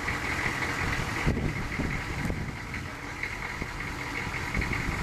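Hummer H1 engine idling steadily, with one sharp knock about a second in.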